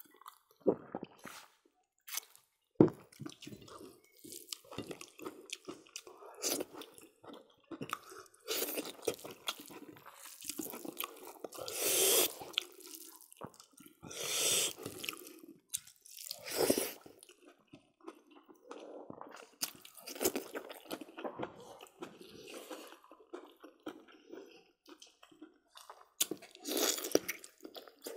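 People eating rice and pork curry by hand, heard close up: chewing, wet lip-smacking and crunching with many small clicks. Several longer wet smacking and slurping noises come in the middle and again near the end, and a single sharp knock about three seconds in is the loudest moment.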